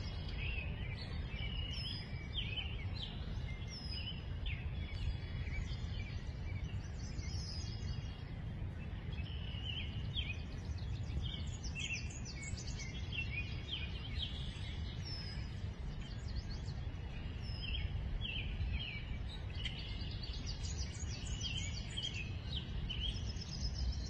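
Several songbirds of the spring migration calling and singing at once: many short chirps and quick trills, overlapping throughout. A steady low rumble lies underneath.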